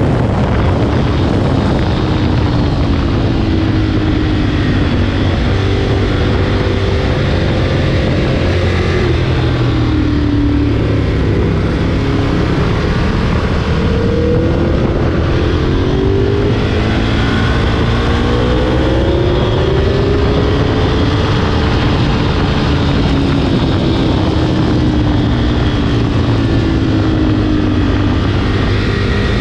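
Ducati 1098's L-twin engine at racing pace, revs repeatedly rising and falling through the corners, heard from a camera on the bike with heavy wind rush over the microphone.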